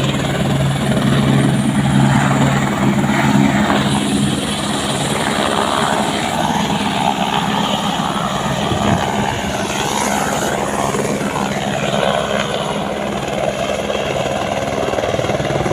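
Helicopter flying, with a loud, steady drone of rotor and engine. A low hum is strongest for the first few seconds, then eases.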